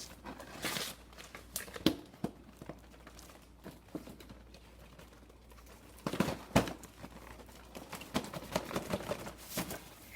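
Plastic toy packaging being handled and worked open: intermittent crinkling and rustling with small clicks and knocks, in a few clusters with quieter gaps between.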